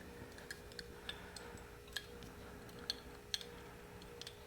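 Light, irregular clicks and ticks of small metal carburettor parts, the throttle slide and needle, being handled during disassembly.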